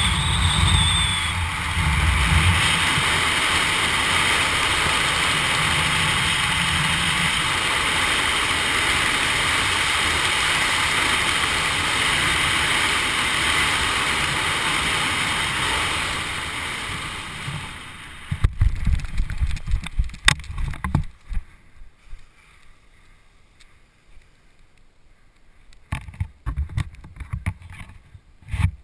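Wind rushing over a helmet camera's microphone during a parachute canopy descent, a steady loud rush that fades away as the canopy slows for landing. After that come scattered low thumps and short rustling bursts from the touchdown and the canopy settling, with quiet between them.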